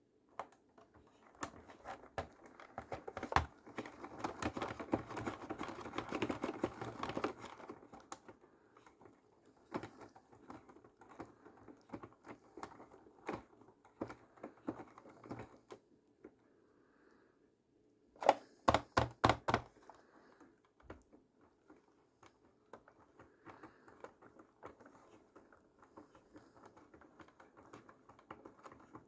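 Irregular rapid clicking and clattering of hard objects. A dense, louder stretch of rattling comes a few seconds in, and a quick run of sharp knocks comes about two-thirds of the way through.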